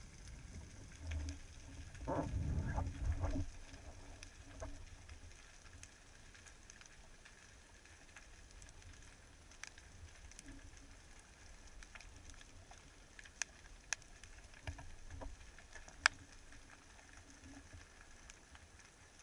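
Faint underwater ambience heard through a camera housing: a low rumbling burst of water and movement about two seconds in, then a quiet hiss with scattered sharp clicks and crackles, a few louder clicks near the end.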